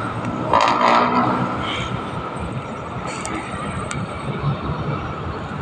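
Steady rushing noise of wind on a phone's microphone high on a rooftop, with a louder burst about half a second in.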